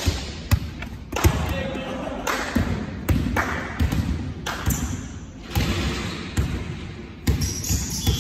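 Volleyballs being struck and bouncing in a reverberant sports hall: a series of sharp slaps and thuds about once a second, each ringing on in the hall's echo, with faint voices in the background.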